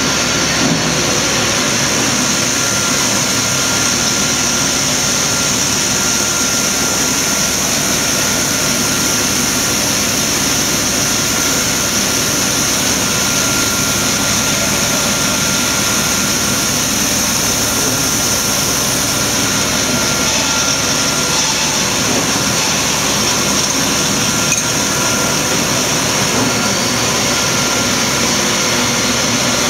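Electric single facer corrugating line running: a loud, unchanging machine drone with a strong high hiss and a thin steady tone running through it.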